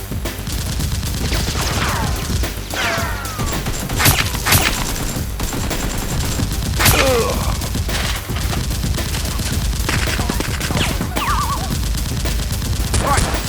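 Sustained gunfire sound effects: rapid, dense automatic fire, with a few louder single shots about four and seven seconds in. Several falling whines cut through the shooting.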